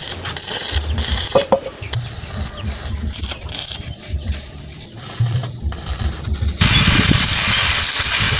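Stick (arc) welding on a steel wheel rim, laying weld to thicken the joint. The arc crackles and sputters irregularly at first, then about two-thirds of the way through turns suddenly to a louder, steady frying hiss.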